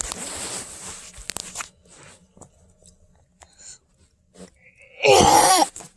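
Rustling and bumping from a phone being handled and swung around, then a short, loud, harsh vocal noise from a young girl about five seconds in.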